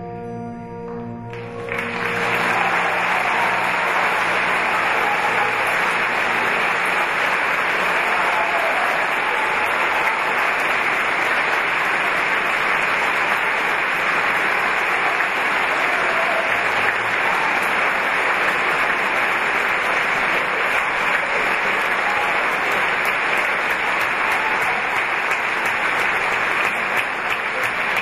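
The song's last held chord from the orchestra ends about a second and a half in, and a large concert-hall audience breaks into loud, steady applause that carries on.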